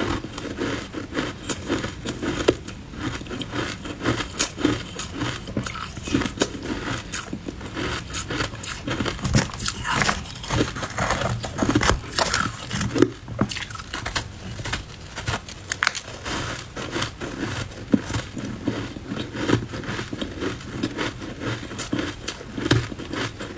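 Close-miked chewing and crunching of ice blocks coated in matcha powder: a dense, continuous run of crackles and crunches.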